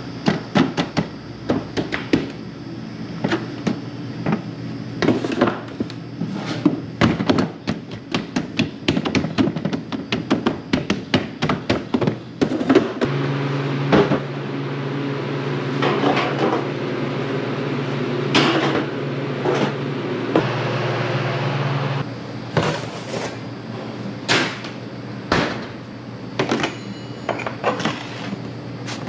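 Kitchen handling noise: plastic dough trays knocking and clattering as they are handled and stacked, in quick irregular knocks through the first half and more scattered ones later. A steady low hum runs through the middle stretch.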